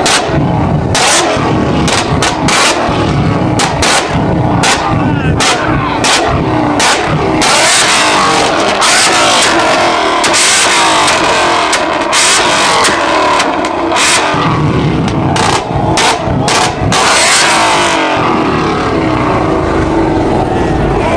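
Car engine held on a two-step launch limiter, its exhaust firing off rapid, irregular loud pops and bangs over the revving engine. The popping stops about three-quarters of the way through, leaving the engine running.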